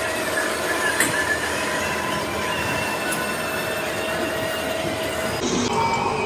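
Workshop machinery running steadily with a high, many-toned whine over machine noise, changing about five seconds in.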